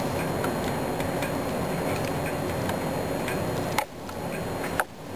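Faint regular ticking, about twice a second, over a steady hiss. Near the end come two sharp clicks about a second apart, each followed by a sudden brief drop in the sound.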